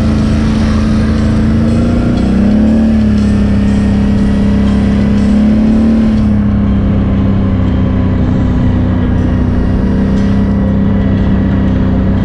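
ATV engine running steadily under throttle as the quad rides along. Its pitch rises a little about two seconds in and settles slightly lower after about six seconds.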